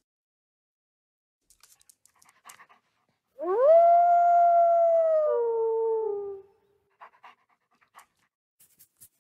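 A single wolf howl, the sound effect of Google's 3D augmented-reality wolf model. It is one long call of about three seconds, starting about three and a half seconds in; it rises quickly, holds steady, then drops a step in pitch and trails off.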